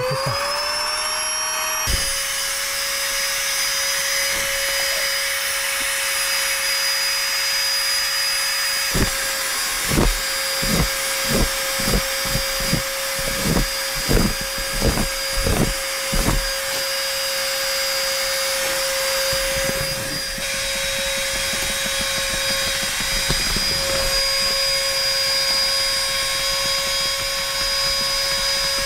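Small electric air pump spinning up, its whine rising in pitch over the first couple of seconds, then running steadily as it inflates an air mattress. In the middle comes a run of about a dozen soft low thumps.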